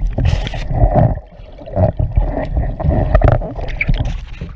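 Water churning and bubbling around a swamped, capsized canoe, heard through a camera submerged underwater: muffled gurgling with irregular knocks and thumps. There is a short lull a little after a second in.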